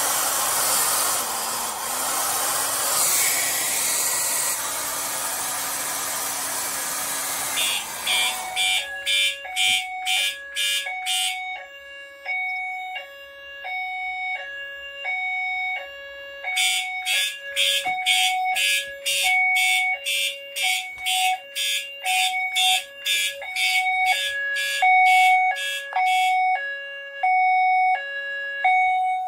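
A hair dryer blows on a fire alarm heat detector for about eight seconds, then stops as the alarm goes off. The alarm's notification appliances sound a two-tone signal that steps between a lower and a higher pitch, with stretches of rapid pulsing on top. The heat detector has been tripped into alarm by the dryer's heat.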